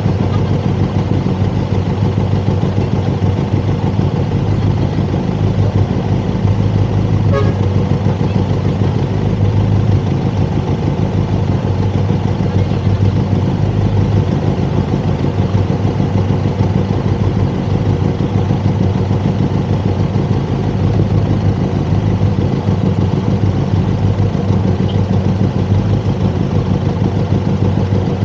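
Benelli TRK 502 X's parallel-twin engine idling steadily, heard up close from the bike. A short horn beep sounds about seven seconds in.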